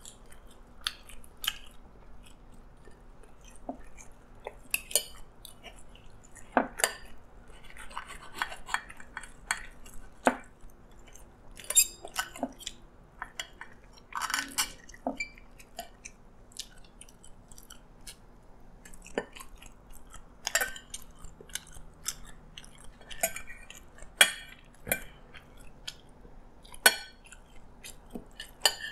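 Metal spoon and fork clinking and scraping on a plate as fried chicken is cut apart, in irregular sharp clicks, with chewing in between.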